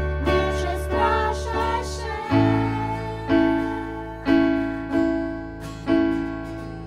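Live worship song: singing over acoustic guitar, bass and keyboard. About two seconds in the voices stop and the keyboard carries on alone with sustained chords struck about once a second.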